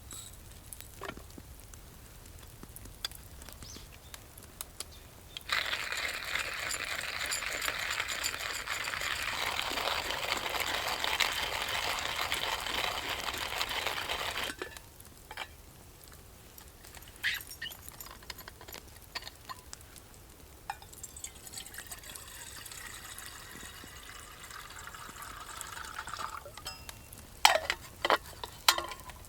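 Water being poured into a container twice: a steady pour lasting about nine seconds that starts some five seconds in, then a quieter, shorter pour later on. A few sharp clicks follow near the end.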